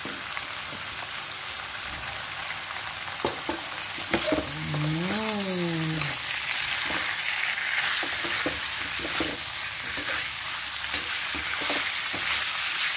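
Pieces of civet meat sizzling in hot oil and spice paste in a wok as they are stir-fried with a metal spatula, with irregular clicks and scrapes of the spatula against the wok. The meat has just gone into the fried, fragrant spice paste.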